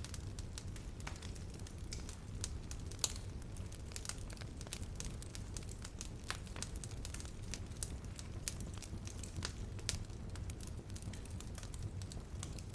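Fireplace fire crackling: irregular sharp pops and snaps over a steady low rumble of the flames.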